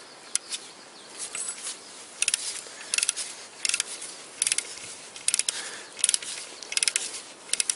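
Torque wrench ratchet clicking as bolts are tightened: short bursts of rapid pawl clicks, one every three-quarters of a second or so from about two seconds in.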